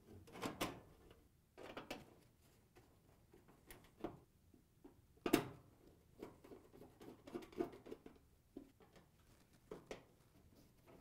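Sheet-metal dryer console being handled and its mounting screws driven in with a hand nut driver: faint scattered clicks and metal taps, with a few sharper knocks.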